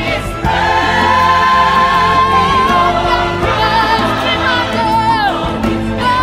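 Choral music playing: a voice holds one long wavering note, then moves into shorter sliding notes, over a steady low accompaniment.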